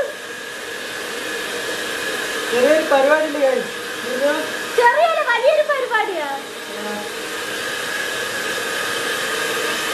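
Handheld electric hair dryer blowing steadily, a constant rush of air with a steady whine. A man's voice laughs over it twice, about three and five seconds in.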